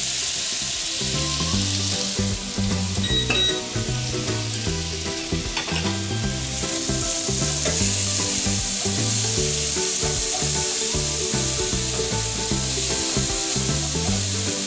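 Onion and garlic sizzling in a hot frying pan, their juice loosening the browned bits stuck to the bottom. The sizzle grows brighter after about seven seconds, with a couple of brief scrapes or knocks early on.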